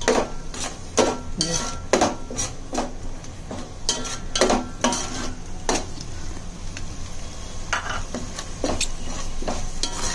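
A spoon stirring and scraping ground masala paste frying in oil in a pot, with irregular clinks against the pot a few times a second over a steady sizzle.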